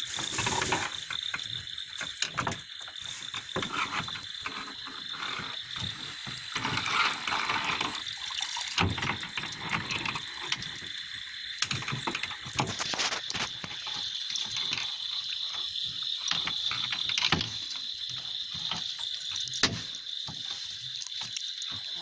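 Night chorus of frogs and insects with a steady high-pitched trill, over irregular splashing and the clicks and rustle of a wet cast net being handled.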